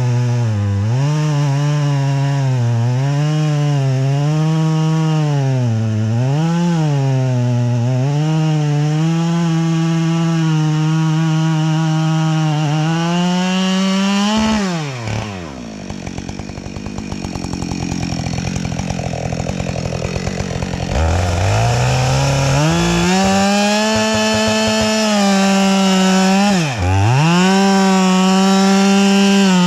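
Chainsaw engine running at high revs, its pitch sagging and recovering as it cuts under load. About halfway through it drops to a lower pulsing idle for several seconds, then revs back up and runs high again, dipping once briefly near the end.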